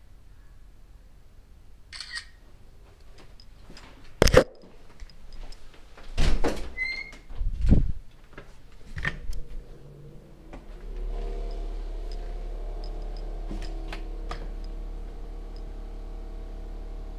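Knocks and thumps from a door and from a body-worn camera being jostled as it passes through a doorway: a sharp knock, then two heavier thumps. A steady low hum with several tones starts a little past the middle.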